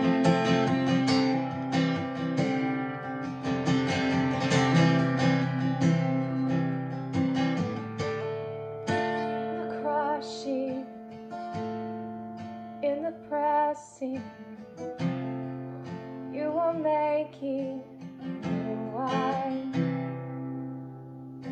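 Acoustic guitar strumming chords for a worship song, with a woman's voice singing a wavering, sustained melody over it from about halfway through.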